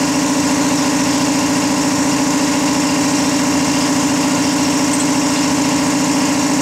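A steady machine hum, loud and unchanging, with a fast even pulse in its low tone.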